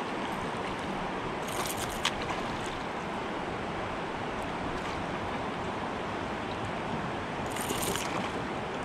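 Steady rush of river water past the boat, with two brief splashes, about a second and a half in and near the end, as a hooked fish thrashes at the surface.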